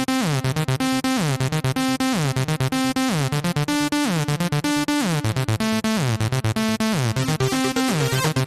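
Electronic background music with synthesizer notes and a bass line that slides downward about once a second.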